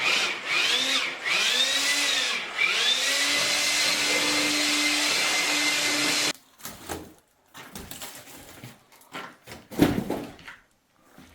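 An electric motor running with a loud rush of air, its pitch swelling up and down several times and then holding steady before it cuts off suddenly about six seconds in. A few scattered knocks follow, the loudest about ten seconds in.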